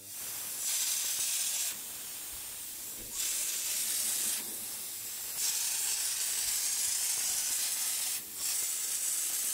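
Compressed-air hopper spray gun (crépi gun with a 6 mm nozzle) spraying a cork-and-glue mix: a steady hiss of air that grows louder in four spells of one to three seconds each.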